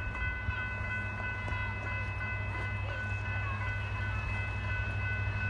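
Approaching diesel freight locomotive, its low engine hum growing slowly louder as it nears, with a steady high ringing over it and a few faint bird chirps.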